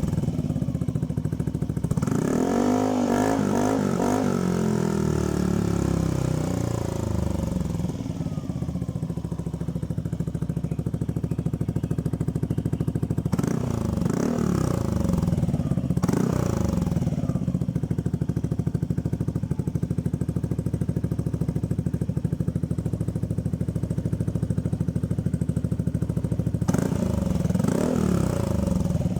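Yamaha Aerox scooter's single-cylinder engine idling through an aftermarket SC Project exhaust fitted with a silencer insert. It is revved several times: one long rev rising and falling a few seconds in, two short blips about halfway, and more blips near the end.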